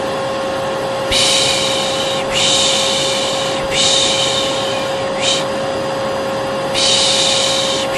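Hair dryer running with a steady hum, under a person's repeated 'pışş' shushing, about a second per shush with short breaks: five shushes, one of them short. It is white noise and shushing meant to calm a colicky baby.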